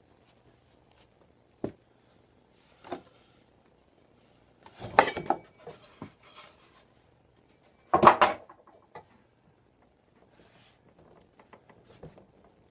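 Scattered metallic clanks and knocks as a Suzuki Hayabusa's front wheel is slid out from between the fork legs, with two louder clatters about five and eight seconds in and light clicks near the end.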